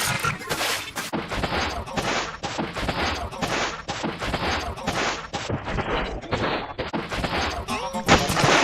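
Edited sound effects: a rapid string of short, sharp cracks, about three a second.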